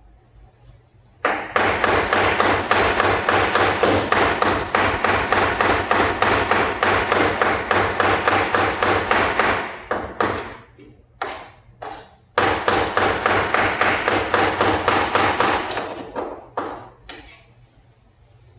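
A blade rapidly chopping chicken meat into keema (mince): two long runs of fast, even strokes, several a second, separated by a short pause with a few single chops, then slowing to scattered strokes near the end.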